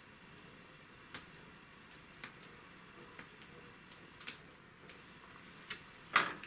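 Fresh mint leaves being picked off their stems by hand: a scatter of faint, short snaps and ticks, with one louder knock near the end.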